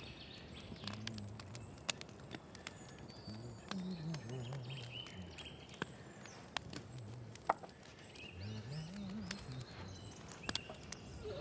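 Garden ambience: small birds chirping, with scattered sharp clicks and crackles. A low, indistinct murmuring sound comes and goes.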